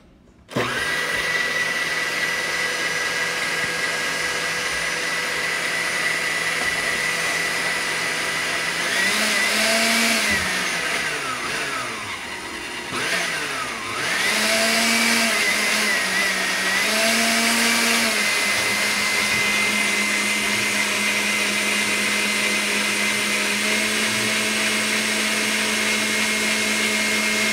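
Motor base of a vintage Oster Regency Kitchen Center switched on and running with a steady whine. The speed dial is worked midway, so the pitch rises and falls, dips low, then settles at a higher speed and steps up once more near the end.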